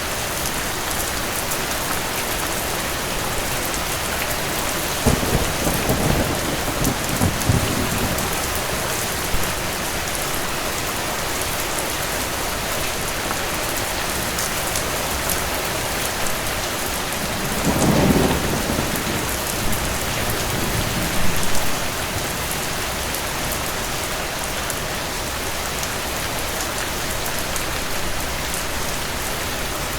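Steady rain with two low, distant thunder rumbles, the first about five seconds in and the second, with a sharper peak, about eighteen seconds in.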